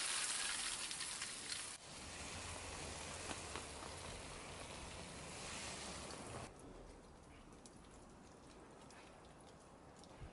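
Water from a garden hose spray falling on freshly planted soil: a steady hiss that drops away about six seconds in.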